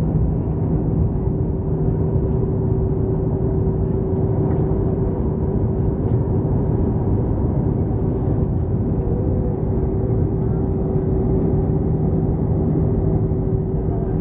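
Steady cabin noise of a jet airliner in cruise, heard from a window seat: the constant roar of the turbofan engines and the airflow, with a steady hum running through it.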